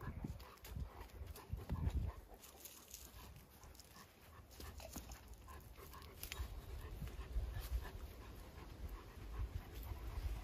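An animal panting faintly, most likely the dogs, with a few low thumps in the first two seconds and scattered small clicks after them.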